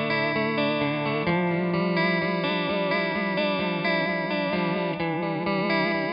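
Electric guitar on a clean tone, played through an RFO Electronics Waterfall four-stage Uni-Vibe-style chorus/vibrato pedal: ringing chords with a steady, pulsing throb from the pedal's modulation. The chord changes about a second in.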